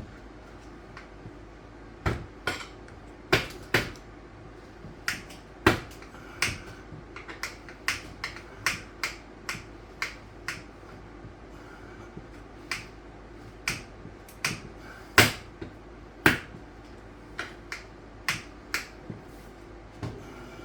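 Steel tire spoons clicking and tapping against a dirt bike wheel rim and tire as the tire is levered on by hand. The sharp clicks come at an irregular pace, about one or two a second, and the loudest falls about three quarters of the way through.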